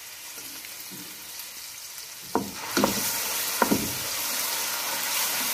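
Green chillies and garlic-ginger paste sizzling in hot oil in a pan. A wooden spoon starts stirring a little over two seconds in, knocking against the pan three or four times, and the sizzling grows louder from then on.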